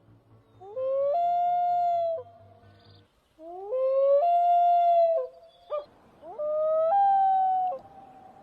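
Common loon giving three long wail calls. Each rises, then holds a steady, clear pitch with a small step up partway through, and lasts about one and a half to two seconds.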